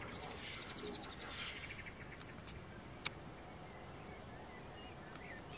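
Faint outdoor evening ambience: a fast, evenly pulsed chirping trill for the first two seconds, then scattered short chirps from small animals, with a single sharp click about three seconds in.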